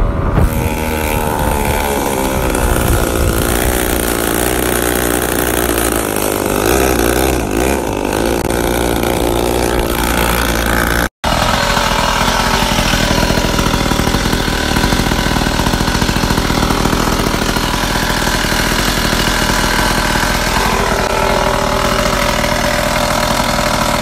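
Small two-stroke pocket bike engine running under riding load, its pitch rising and falling as the throttle is worked; the rider found it low on power. About 11 seconds in the sound cuts, and a second pocket bike's two-stroke engine runs steadily, freshly brought back to life with a replacement carburettor.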